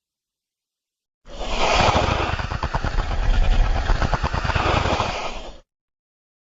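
A designed monster roar sound effect: a loud, rough, rattling growl with a deep rumble beneath, lasting about four seconds, that starts about a second in and cuts off abruptly.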